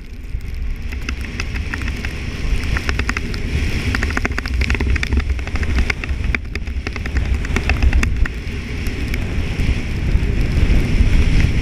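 Wind rumbling on the microphone over the hiss and crackle of snow under a rider going down through fresh powder, getting louder as speed builds.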